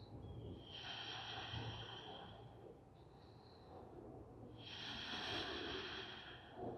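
A person's slow, audible breathing: two long breaths of about two seconds each, one beginning just under a second in and the other about four and a half seconds in.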